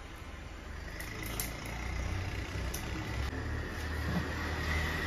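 A low engine rumble that grows louder, with a steady high whine starting about a second in and a few short sharp clicks.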